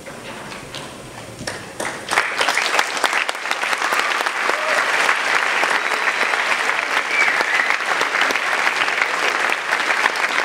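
Audience applauding: a few scattered claps at first, swelling into full, steady applause about two seconds in.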